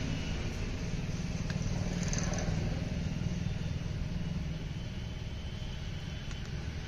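An engine running steadily, a low even drone, with a faint click about a second and a half in.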